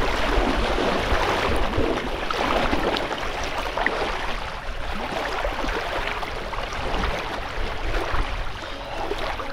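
Water splashing and sloshing close to the microphone, irregular and continuous, with wind rumbling on the microphone underneath.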